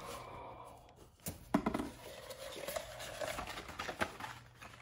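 Rolled paper poster being pulled out of a cardboard mailing tube and unrolled, the paper rustling and crinkling, with a few sharp clicks and knocks a little over a second in.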